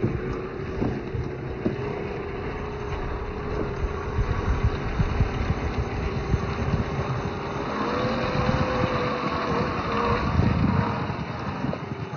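Traxxas TRX-4 RC crawler's electric motor and gearbox whining as it drives over rough ground, with scattered knocks and a rumble from tyres and chassis. The whine steps up in pitch about eight seconds in as it speeds up.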